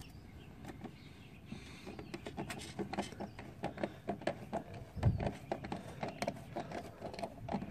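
Small clicks and taps of hands handling a scooter body panel and its fasteners during assembly, with a dull thump about five seconds in.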